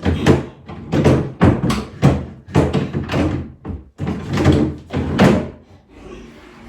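A flat-pack wooden drawer being pushed and worked into its chest-of-drawers carcass, giving about ten knocks and scrapes in quick succession, then going quiet near the end. The drawer is not sitting right on its runners and not catching.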